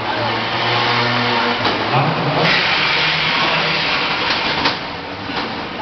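15 lb combat robot's spinning drum weapon and drive motors running with a steady hum that moves up in pitch about two seconds in. A few sharp metal clanks from robots hitting come near the end.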